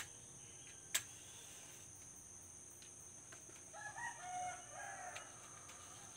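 A rooster crowing once about four seconds in, over a steady high drone of crickets. Near the start come two sharp clicks a second apart as a lighter is flicked to light the fire.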